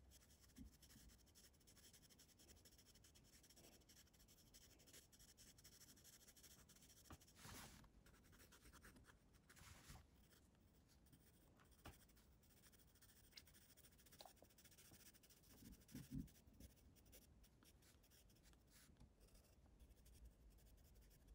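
Faint scratching of a pencil on sketchbook paper: many quick short strokes, with a few slightly louder strokes along the way.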